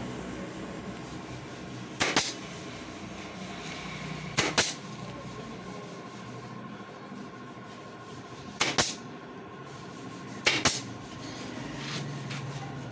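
Pneumatic nail gun firing four short, sharp shots at uneven intervals, driving fasteners to fix a wooden support brace across the corner of a canvas stretcher frame.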